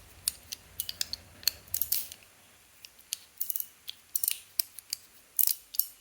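Metal EDC fidget toy worked by hand: a string of sharp metallic clicks and clacks at an uneven pace as its small parts move against each other.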